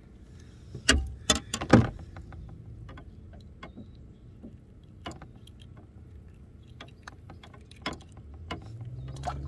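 Handling noise as a small bream is taken off the hook by hand: a cluster of loud knocks about a second in, then scattered light clicks and one more knock near the end. A faint low hum comes in near the end.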